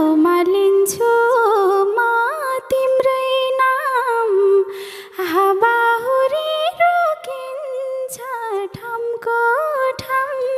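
A female voice sings a slow, wordless, ornamented solo line without accompaniment, the pitch sliding and bending between held notes.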